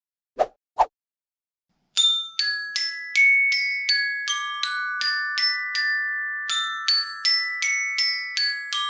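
Two short knocks, then a ringtone melody played on a glockenspiel: a quick run of struck metal bars whose notes ring on and overlap, in two phrases with a short break in the middle.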